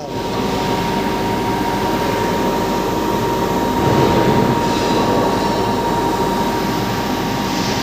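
A heavy grinding machine running steadily: a dense, even mechanical noise with a steady high hum through it, swelling a little about four seconds in.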